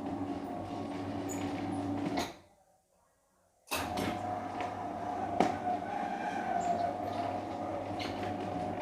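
Metal roller shutter rattling as it rolls. It stops with a clank about two seconds in, falls silent for about a second and a half, then starts rolling again with a sharp start and a loud clank a little later.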